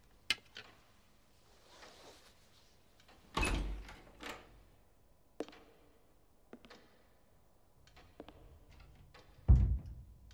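A heavy wooden door slamming shut about nine and a half seconds in, the loudest and deepest thud. There is an earlier dull thud a little over three seconds in, and light knocks and clicks between.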